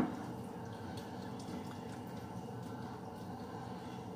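A wooden spoon knocks once against a frying pan, then rigatoni in meat sauce makes a faint steady sizzle with light crackles in the pan.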